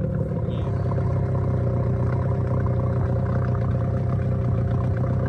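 Boat's outboard motor running steadily at an unchanging pitch.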